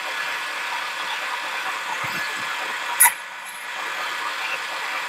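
Harbor Freight mini lathe running and turning metal, a steady motor and gear whine with cutting noise. About three seconds in comes a sharp click, and the sound drops briefly after it.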